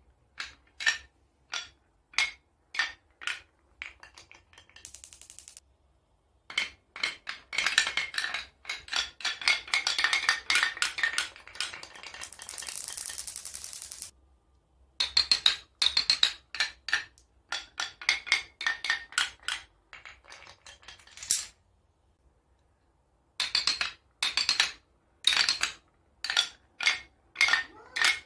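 Glass marbles rolling and clacking through a wooden marble run: quick series of clicks and knocks as they drop from chute to chute, with a longer, denser rattle of rolling marbles in the middle.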